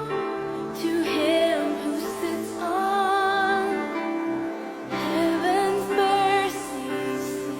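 Slow, gentle music with a woman's voice singing long held notes with vibrato, in phrases separated by short breaths.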